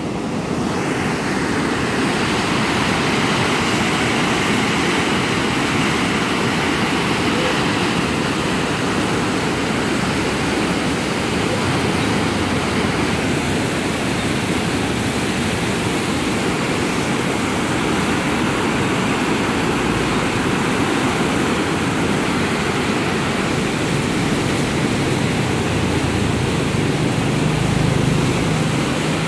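A river in flood after heavy rain, its muddy, swollen water rushing and churning over rocks in a steady, loud wash of noise. A low rumble swells briefly near the end.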